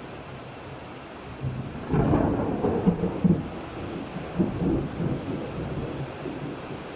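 Thunderstorm: steady rain hiss, then about two seconds in a peal of thunder breaks with sharp crackles and dies away over the next few seconds.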